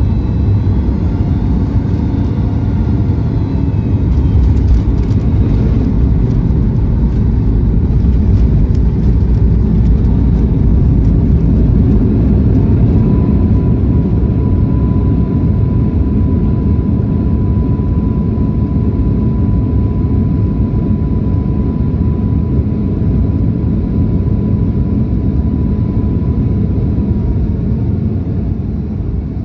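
Boeing 737 MAX 8 with CFM LEAP-1B engines heard from inside the cabin just after landing: a loud, steady rumble of engines and runway that swells about four seconds in. A steady whine runs through much of the second half, and the rumble eases off near the end.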